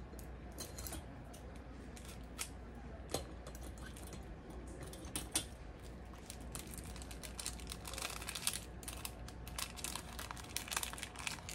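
Small gift packaging being handled and opened by hand: light rustling with many small, irregular clicks and taps, busiest in the second half.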